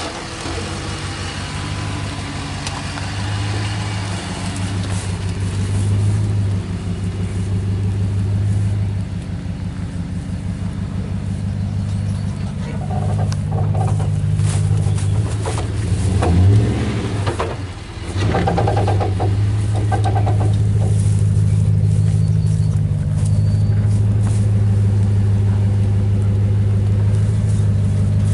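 2014 Ram 1500's 5.7 L Hemi V8 running with a steady low rumble. Midway there is a stretch of knocks and clatter and a short dip in level, after which the engine runs steady and a little louder.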